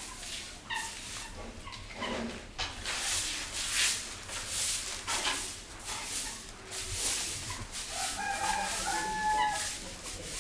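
Broom sweeping the ground in repeated swishing strokes, with a rooster crowing once about eight seconds in.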